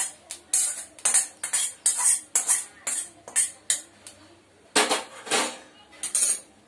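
A metal spoon scrapes roasted onion and coconut out of a black iron kadhai into a steel plate, with quick scrapes and clinks of metal on metal about two or three a second. After a pause, two longer scrapes and a few clinks follow near the end.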